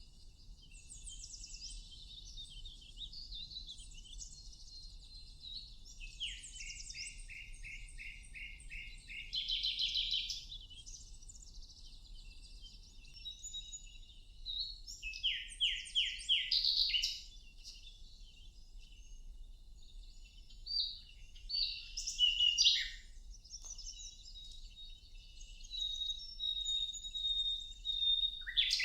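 Several songbirds singing and chirping over a faint steady low rumble. Phrases come every few seconds, among them quick runs of repeated short notes, with the loudest bursts about a third and halfway through.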